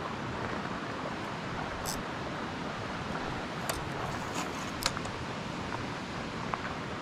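Steady wind noise on the microphone, with a few faint clicks in the middle.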